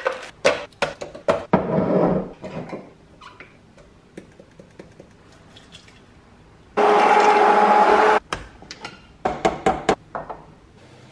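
Frozen blueberries rattling into a plastic immersion-blender beaker, with more clatter as ingredients go in. About seven seconds in, a motor whirs steadily for a second and a half and cuts off suddenly: the immersion blender. Near the end, a few clinks as a drinking glass is set down on the counter.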